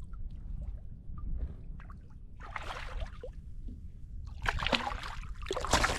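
Water splashing and sloshing at the side of a kayak in two bursts, the second and louder one near the end, over a steady low rumble of wind on the microphone.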